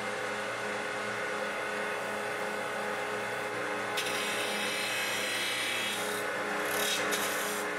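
Profile grinder's abrasive wheel spinning and grinding a steel moulder knife to shape, over a steady motor hum. The grinding hiss grows louder from about halfway through.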